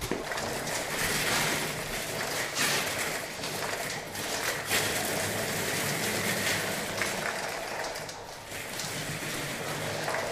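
Wheeled bomb-disposal robot driving over a concrete floor: a steady hiss with a faint whir from its electric drive, and a couple of short knocks.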